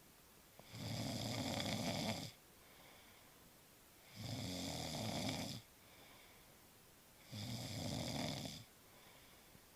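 A man snoring in his sleep: three loud snores about three seconds apart, each lasting a second or a little more, with quiet gaps between them.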